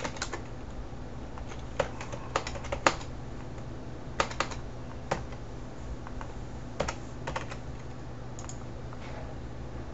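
Computer keyboard being typed on: sharp key clicks in short, irregular clusters with pauses between them, over a steady low hum.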